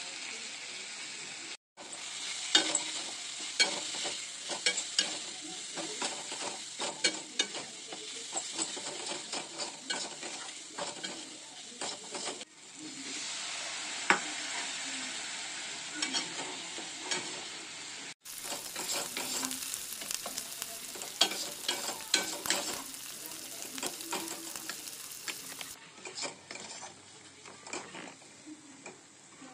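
Chopped tomatoes and spices frying in oil in a kadai, sizzling steadily, with a spatula scraping and clicking against the pan in quick strokes. The sound drops out briefly a few times.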